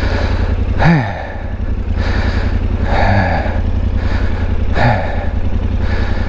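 Yamaha Ténéré 700's parallel-twin engine running at low revs, with three short sounds that drop in pitch about one, three and five seconds in.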